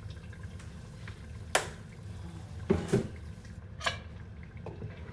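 Four sharp knocks of a kitchen utensil against a cooking pot, two of them close together in the middle, over a steady low hum.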